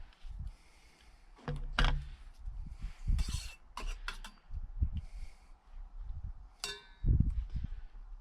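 Metal camping cookware being handled: scattered clicks, knocks and low bumps, with one clear ringing metallic clink about two-thirds of the way through.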